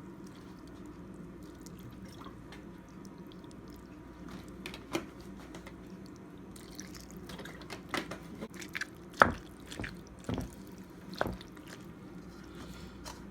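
Scattered light knocks and clicks of kitchen handling over a steady low hum, the sharpest knock about nine seconds in.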